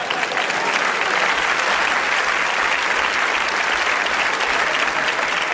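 Large theatre audience applauding steadily in response to a joke.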